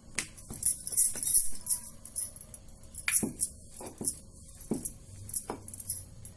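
Dough being rolled out with a rolling pin on a stone board: repeated light knocks and jingling clinks at about two or three strokes a second.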